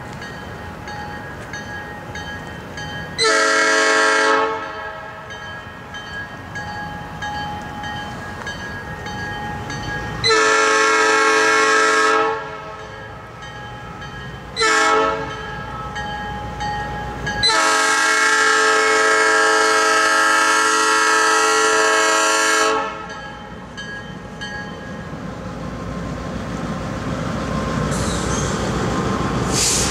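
Locomotive air horn sounding the grade-crossing signal: two long blasts, a short one, then a long one, each a chord of several tones. A crossing bell dings steadily underneath, and the rumble of the approaching train grows louder near the end.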